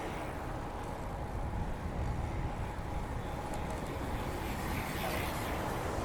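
Wind rushing over the chest-mounted microphone of a moving bicycle, with the steady rumble of its tyres on the paved path; a few faint ticks near the middle.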